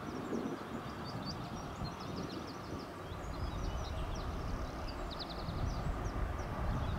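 SNCF BB 75000 class diesel-electric locomotive drawing near at the head of a train of hopper wagons: a low engine rumble that grows louder from about halfway in. Small birds chirp over it throughout, with a quick trill about five seconds in.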